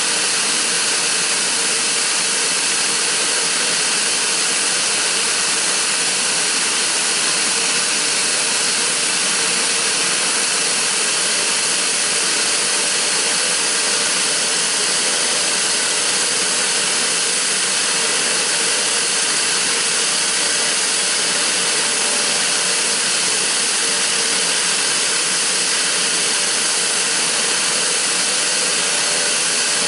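Pilatus PC-12/47E's Pratt & Whitney PT6A turboprop running steadily, a loud, even rushing hiss with a faint whine that does not change.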